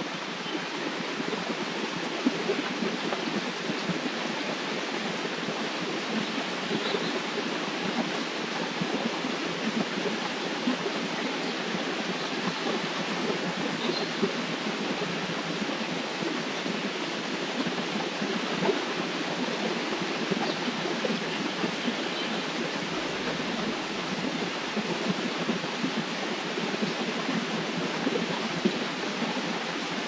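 River water flowing steadily, a continuous rushing and burbling.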